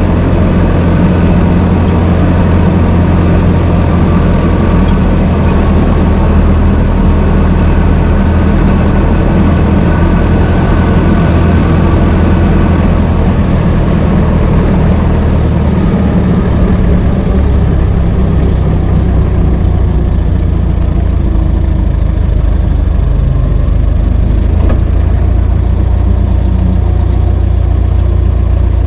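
Old car's engine running steadily with a low rumble. About halfway through, the higher-pitched part of the sound fades and the low engine note carries on.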